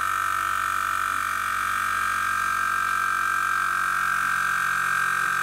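Berkut car air compressor running, a steady whine, pumping air into a home canning autoclave through its nipple valve to bring it up to about 1.5 atmospheres before heating.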